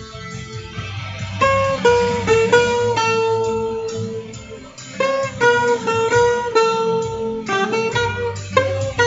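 Guitar playing a slow, improvised melodic lead of sustained plucked notes over a recorded backing track with a steady low accompaniment.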